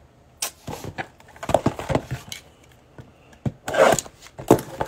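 A cellophane-wrapped cardboard trading-card blaster box handled and slid across a tabletop: a run of irregular rubbing and scraping noises, the loudest near the end.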